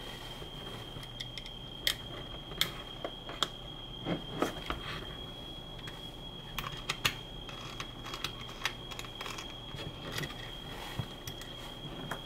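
Irregular light clicks and taps of a hex key and fingers handling the microcontroller board and its screw inside a plastic keyboard case, over a faint steady high-pitched tone.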